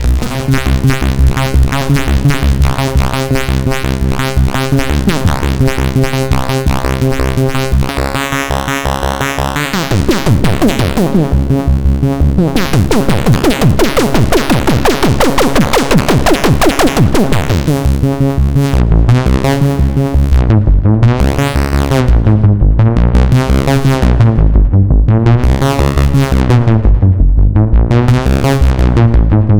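A 1981 Sequential Circuits Pro-One monophonic analog synthesizer playing a fast repeating sequenced bass pattern. In the middle come a run of quickly falling pitch sweeps. In the last third a bass line repeats while its filter opens and closes in waves about once a second.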